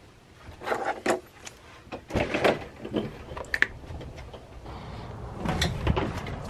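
Scattered knocks and clatters of a door being opened and a person stepping out through it, with a short squeak about three and a half seconds in.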